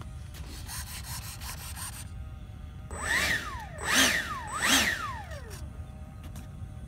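The twin 90 mm electric ducted fans of a Freewing F-15 RC jet, throttled up and back down three times in quick succession about three seconds in: a whine that rises sharply in pitch and falls away each time, the last spooling down slowly.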